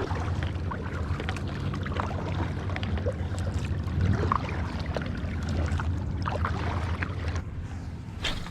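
Low steady drone of motorboats running past, with small splashes of water; the engine drone fades away near the end.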